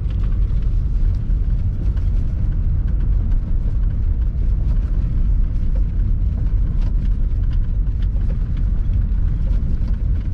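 Steady low rumble of a vehicle driving slowly over a packed-snow road, heard from inside the cabin, with scattered light clicks and knocks.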